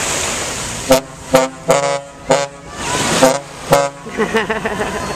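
A large motor yacht's horn sounds a series of about six short blasts, the third and fifth a little longer, as a farewell signal while the yacht backs away from the beach. Wind and surf noise come before the blasts.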